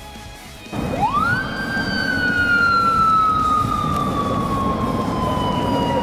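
Japanese police motorcycle siren switched on under a second in: a single wail that rises steeply in pitch, then slides slowly down while held. It signals a driver to pull over for a traffic stop.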